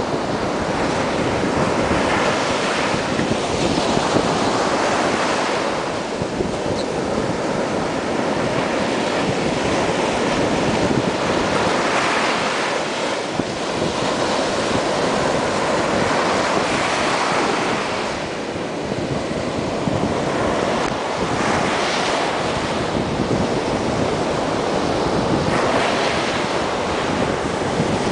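Surf washing onto a sandy beach, with small waves breaking and swelling every few seconds. Wind buffets the microphone with a low rumble.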